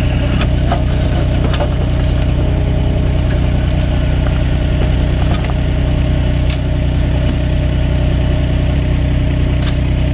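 An engine running steadily at idle, with a few faint clicks over it.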